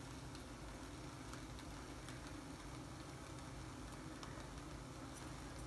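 Hot sauce sizzling faintly in a hot pan as it is poured over grilled chicken for a sizzler platter: a steady low hiss with scattered small pops.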